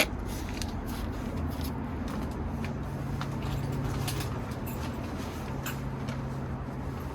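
Faint, scattered clicks of small objects being handled, over a steady low hum that fades in and out.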